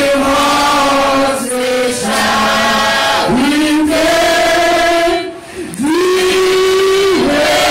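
A group of people singing a slow hymn-like chant together, holding long notes and moving from note to note, with a short break for breath about five seconds in.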